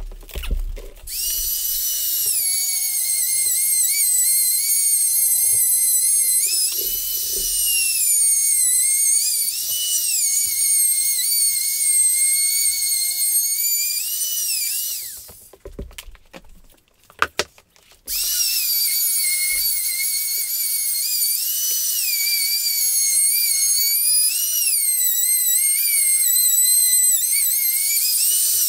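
Router with a flush-trim bit running at high speed and trimming Formica laminate flush with the countertop edge: a high whine that dips and recovers again and again as the bit cuts. About halfway through it winds down, a few sharp knocks follow, and it starts up again a few seconds later.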